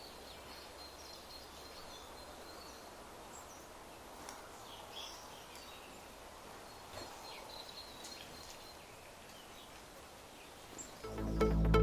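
Faint outdoor ambience with scattered short bird chirps and calls. Electronic music with a heavy bass starts near the end.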